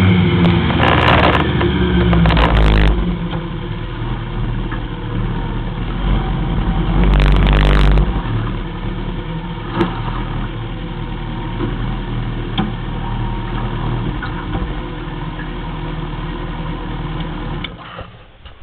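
Honda CB1300's inline-four engine running under way with wind and road noise for about three seconds, then settling to a steady idle, with one short throttle blip around seven seconds in. The engine is switched off near the end.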